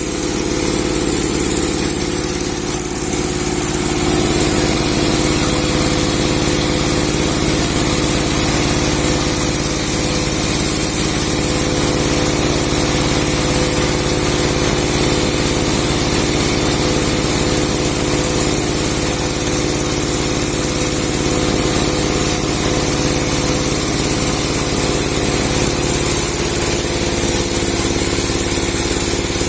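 Engine of a 30-horsepower log-sawing machine with a 60 cm blade, running steadily with a constant drone. Its pitch shifts slightly about three seconds in and again near the end.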